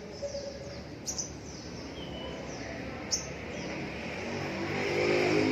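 Small birds chirping: a run of quick, high chirps that each sweep downward, mixed with a few sharp clicks. Near the end a low engine hum grows louder.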